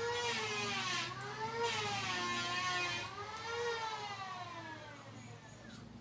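A motor or engine whining, its pitch rising and falling in slow swells every second or two.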